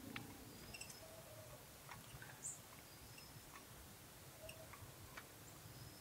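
Near silence: room tone with a few faint small clicks.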